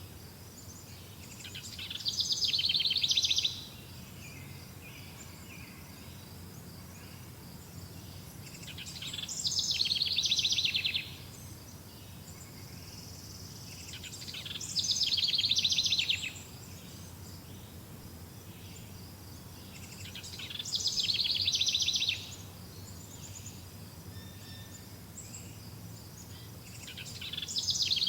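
A forest songbird repeating the same song about every six seconds, five times: each song lasts about two seconds, a rapid high series of notes that grows louder and then stops abruptly. A steady low background hum of the forest runs beneath it.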